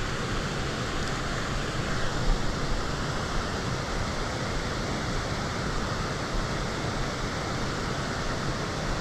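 Steady rushing of water pouring over a low river weir, with an uneven low rumble of wind on the microphone.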